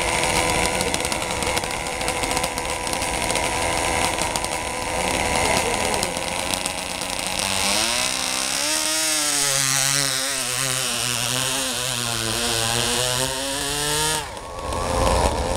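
Small model engine of an RC pulling tractor running at high revs, rising in pitch about eight seconds in as the tractor pulls its weight sled down the track. The pitch wavers under the load, and the engine cuts off suddenly near the end.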